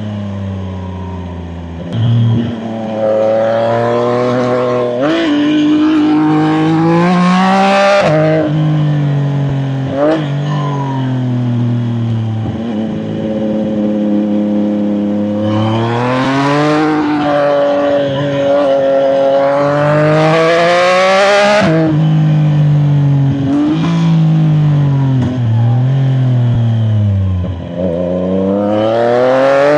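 CFMOTO 675NK's inline three-cylinder engine pulling hard through the gears. Its pitch climbs under throttle, drops sharply at each shift, and sags when the throttle is closed between bends, and wind hiss builds as speed rises.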